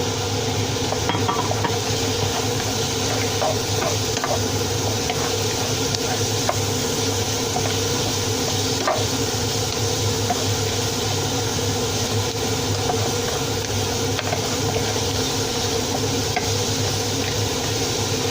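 Bell pepper sizzling in a pan while a spatula stirs it, giving scattered light scrapes and clicks over a steady hum.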